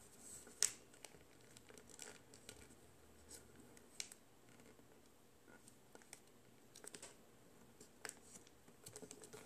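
Faint, scattered crinkles and soft clicks of a sheet of origami paper being pinched, folded and creased between the fingers.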